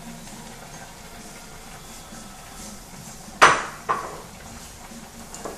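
Two sharp knocks about half a second apart, a little past halfway: a plate of sliced carrots striking the rim of a metal pot as the carrots are tipped in. Under them runs a faint steady hiss from the simmering pan.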